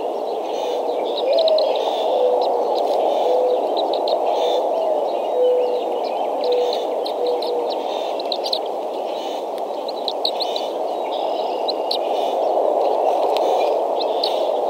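Wild birds calling over a steady rushing background. A low whistled call starts with a rising note and runs on in short, evenly spaced notes, and starts over a few times. Quick high chirps come and go above it.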